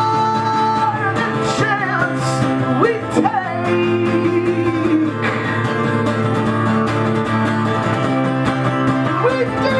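A strummed steel-string acoustic guitar playing steadily, with a man singing long held and sliding notes over it in the first half; the guitar carries on alone through the middle, and the voice comes back near the end.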